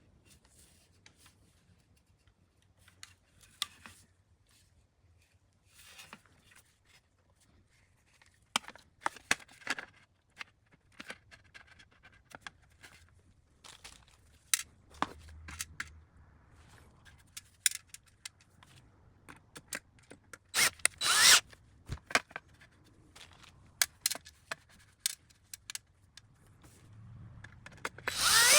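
Hands working on a network video recorder's case and hard drive: scattered clicks, taps and scrapes of metal and plastic, with a louder scraping rattle about 21 seconds in and another at the very end.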